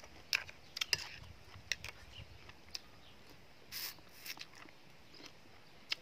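A person eating seafood salad: wet chewing and biting with scattered sharp clicks and crunches, and a spoon scraping the plate, in short irregular bursts.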